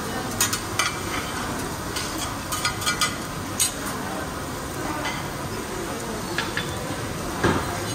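Food sizzling on a teppanyaki steel hotplate, with sharp metal clinks and taps of utensils against the griddle at irregular intervals, a cluster in the first few seconds and a louder one near the end.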